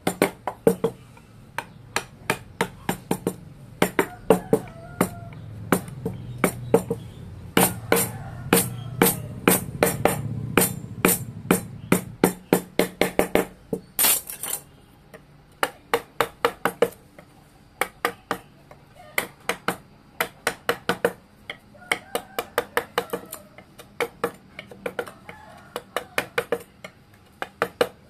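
A wooden mallet taps a steel carving gouge into wood, cutting relief. The strikes are quick and sharp, coming in irregular runs of taps. A low hum runs under the tapping from about four seconds in and stops sharply about twelve seconds in.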